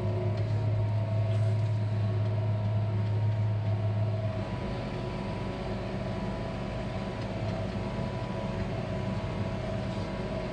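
Challenger tractor's AGCO six-litre diesel engine running steadily under load while pulling a tillage tool, heard from inside the cab. A strong low hum fades out about four seconds in, leaving a steadier, slightly quieter drone.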